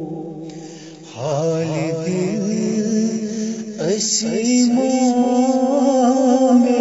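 A male voice singing a Kashmiri manqabat in long, ornamented phrases with bending, wavering pitch. A held note fades out in the first second, a new phrase begins just after, and the singing grows louder about four seconds in.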